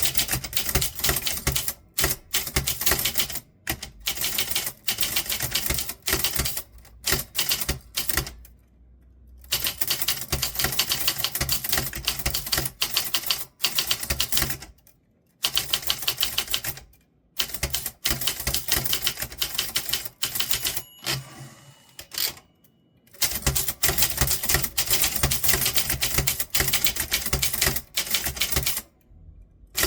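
Typewriter being typed on fast: a rapid stream of key strikes in runs, breaking off for a second or so several times, with the longest pause about twenty-one seconds in.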